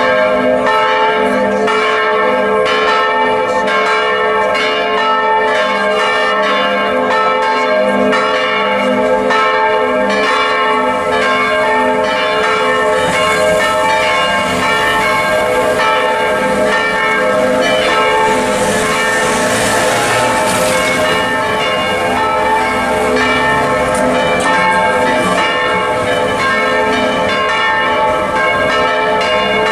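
Several church bells swinging full circle and ringing together in a continuous, dense peal. The bells are swung by wheel-and-belt drives.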